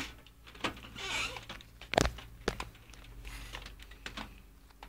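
Scattered light clicks and knocks of hands and a screw being worked on a steel desktop PC case, the sharpest about two seconds in, with a short scrape about a second in.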